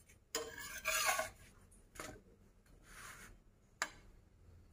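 Metal spatula scraping under a khubz flatbread on a griddle (tawa) to flip it: a loud scrape lasting under a second, then two shorter scrapes and one sharp tap of metal on the pan near the end.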